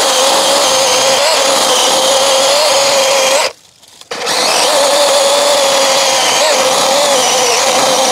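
DeWalt 20V MAX XR 12-inch cordless electric chainsaw running at full speed, its chain cutting through the trunk of a small living tree at stump height. It gives a steady high whine. About three and a half seconds in it stops for about half a second, then starts again and keeps cutting.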